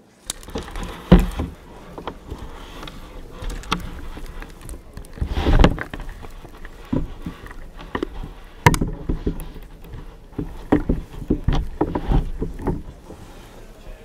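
Water sloshing and splashing with irregular knocks and thumps as a plastic bottle packed with dry ice is handled and set down in warm water, the loudest knocks about a second in, near the middle and about two-thirds of the way through.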